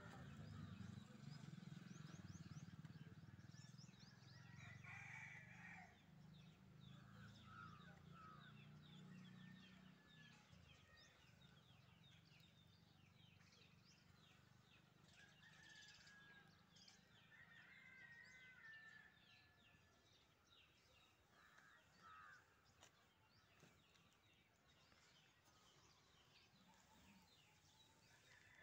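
Near silence: faint background ambience with scattered faint bird chirps and a low hum that fades after about ten seconds.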